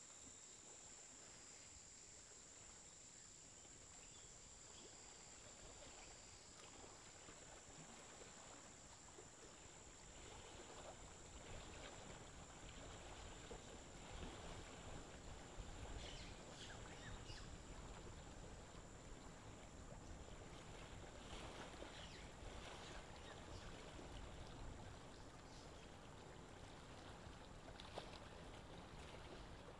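Faint aquarium water noise, a low trickling and bubbling of moving tank water from the filter and air line, with a thin steady high whine; it grows a little louder after about ten seconds, with a few faint ticks.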